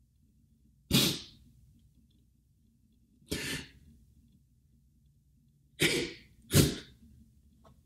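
A man crying: four short, sharp sobbing breaths, the last two close together near the end.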